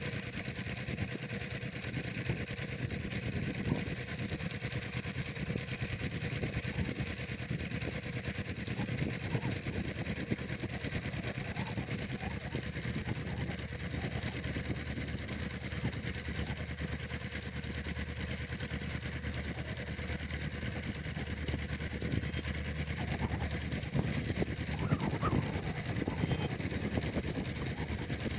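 EMD diesel-electric locomotive's engine running steadily as it approaches, hauling a passenger train, with its low hum growing louder near the end.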